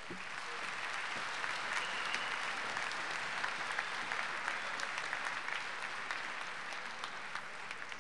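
Applause from a large crowd of many people clapping, building up over the first second or so, holding steady, then easing off slightly near the end.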